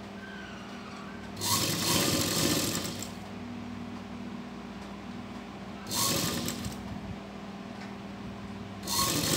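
Sewing machine stitching fabric in short runs: one of about a second and a half, a brief one around six seconds in, and another starting near the end, with a steady low hum in between.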